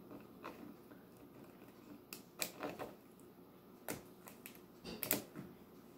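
A cat's claws clicking and scratching on a hard floor as it wrestles and kicks a plush toy. There are a few irregular sharp clicks and short scrapes, loudest about five seconds in.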